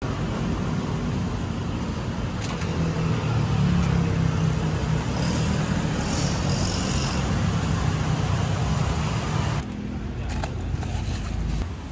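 Steady road traffic noise, a low rumble of passing cars, which thins out and drops a little about ten seconds in.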